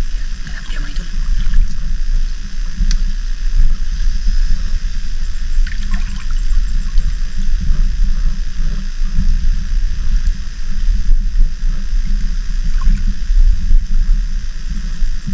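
Seawater sloshing and gurgling close to the microphone: a low, steady churning with scattered small splashes and light clicks.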